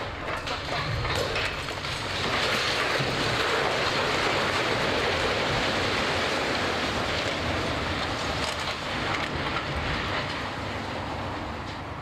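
A concrete-framed factory tower collapsing under demolition: a long crashing rumble of falling concrete and steel. It swells about two seconds in, stays loud for several seconds with scattered sharp knocks, then dies away toward the end.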